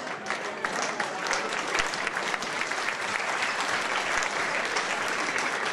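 Audience applauding: dense, steady clapping from a crowd in a hall.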